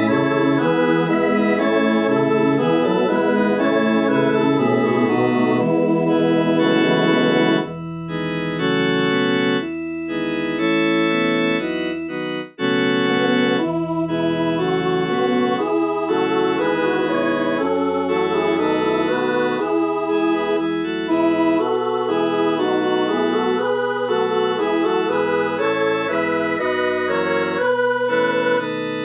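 Computer (MIDI) playback of a multi-part Christmas choral arrangement, with all the voice parts sounded together on a synthesized organ-like tone. The chords change note by note, and there is a brief break about twelve seconds in.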